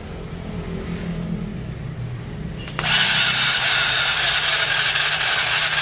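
A low hum, then about three seconds in a power tool starts up abruptly and runs steadily with a harsh grinding noise, as when working metal engine parts.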